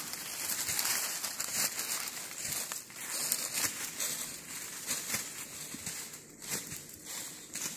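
Dense crackling and rustling of dry leaf litter in a forest ground fire, with people beating and sweeping at the burning leaves with branches.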